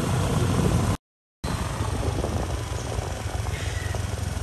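Wind rumbling on the microphone while riding a motorcycle, an even rushing noise heaviest in the low end. It drops out to total silence for about half a second a second in, then resumes.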